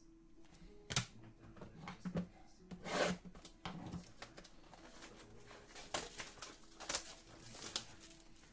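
Trading cards and a hard clear plastic card holder being handled: a sharp click about a second in, a rustle around three seconds, and several more light clicks and rustles near the end.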